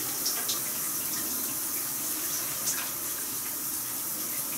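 Steady hiss of running water, likely a shower behind the curtain, with a few light clicks and rustles.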